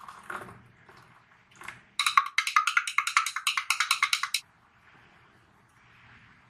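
Water poured briefly into a drinking glass of instant coffee, then a couple of seconds of rapid, loud clinking against the glass, about ten clicks a second, stopping abruptly.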